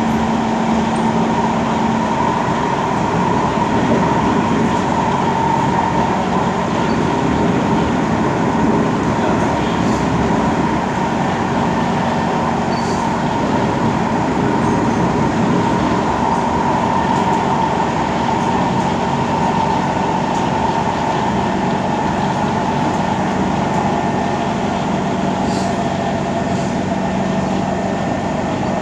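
SMRT Kawasaki C151 metro train heard from inside the car, running steadily. Continuous wheel and track rumble lies under a steady traction-motor whine that drifts slightly in pitch, with a fainter low hum.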